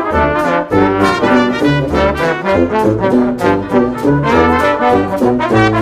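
Background music led by brass instruments over a moving bass line with a steady beat.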